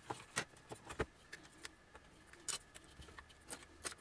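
Small clicks and taps of an LCD panel's metal frame and backlight parts being handled while a replacement backlight tube is fitted, a handful of sharp clicks at irregular intervals.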